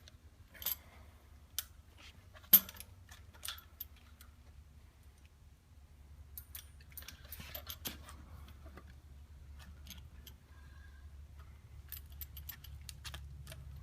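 Light metallic clicks and rattles of a bicycle chain, rear derailleur and 9-speed cassette as the rear wheel is worked into the frame's dropouts. The clicks are scattered, the sharpest about two and a half seconds in, over a low steady hum.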